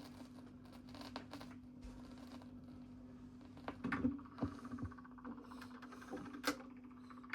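Stylus riding the run-out groove of a 12-inch 45 rpm vinyl single after the music has ended: a steady low hum with faint surface noise and a click about every 1.3 seconds, once per turn of the record. A few soft thumps come about four seconds in.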